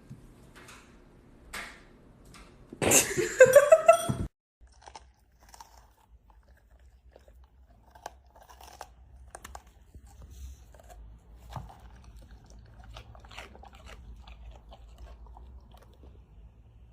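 Crunchy chewing and biting sounds, soft and irregular. About three seconds in comes a loud, short cry that rises in pitch and lasts just over a second.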